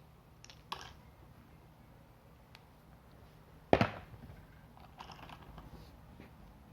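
Handling of a mechanical keyboard and its packaging: a sharp click under a second in, then a loud knock about halfway through, as of the board being set down on a hard surface, followed by light rustling and small clicks.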